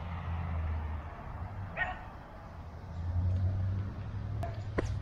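A dog barks once, about two seconds in, over a low steady rumble, with a sharp click near the end.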